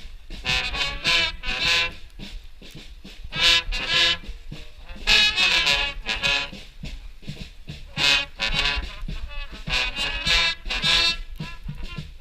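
Street brass band of horns and saxophones playing a tune in short phrases, over a steady low rumble.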